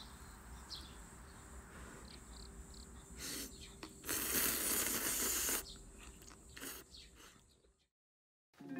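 Instant ramen noodles being slurped: one loud slurp lasting about a second and a half, midway, after a shorter one, against faint outdoor ambience with a few bird chirps.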